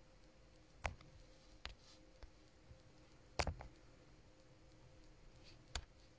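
A few light clicks and taps of handling noise close to the microphone, about four in all, the loudest about three and a half seconds in, over quiet room tone with a faint steady hum.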